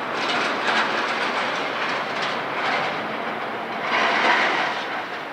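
Rushing, clattering city noise that swells and fades several times, loudest about four seconds in, with little deep rumble.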